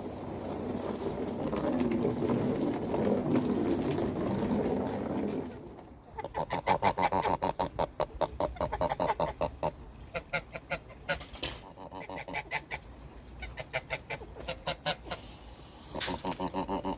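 A flock of chickens clucking in quick runs of short calls, after a rustling noise for the first five seconds or so.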